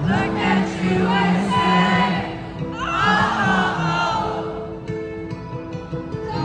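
Live concert music through the venue's PA: a slow song with a sung vocal over sustained low synth notes.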